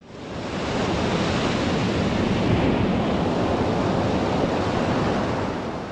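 Steady wash of sea surf with wind, fading in over the first second and falling away near the end.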